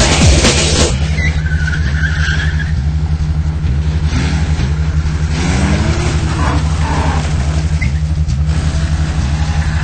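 Car engine running, with a short tyre squeal about a second in and a rising rev around the middle.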